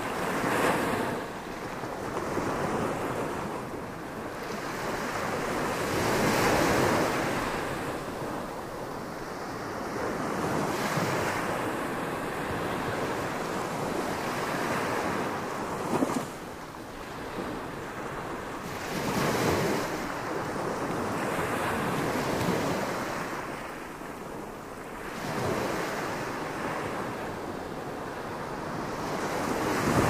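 Small Gulf of Mexico waves breaking and washing up a sandy beach, the surf swelling and easing every few seconds, with one sharper splash about halfway through.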